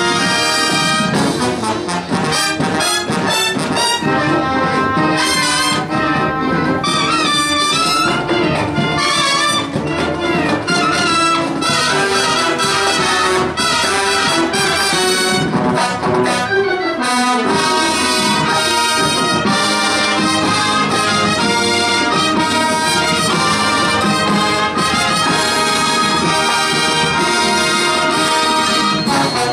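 High-school marching band playing loudly and continuously: trumpets, trombones and sousaphones in full brass chords over marching drums keeping the beat.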